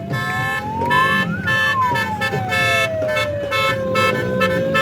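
Vehicle horns honking in short repeated blasts, with a siren wailing over them, its pitch rising, falling and rising again.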